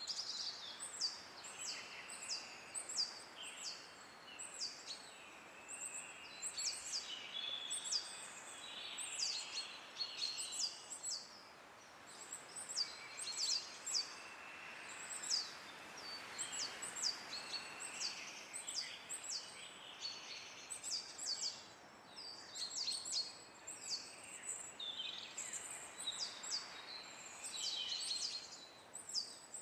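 Small songbirds chirping over and over in quick, high, downward-sliding notes, over a soft steady hiss of wind in the trees.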